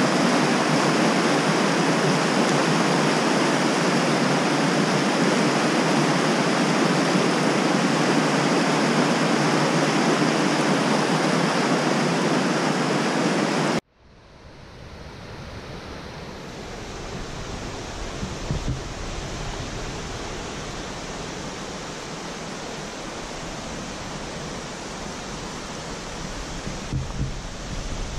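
Rushing mountain creek water, a loud steady rush. About halfway through it cuts off abruptly and comes back as a quieter, softer rush of water with a low rumble underneath.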